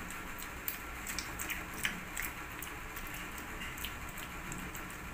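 Faint room tone with a few soft mouth clicks and smacks from children sucking on hard lollipops.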